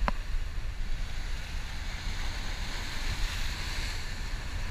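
Strong wind buffeting the microphone with a steady low rumble, over surf washing across rocks. A wave rushes in more loudly about two seconds in, and there is a brief sharp sound right at the start.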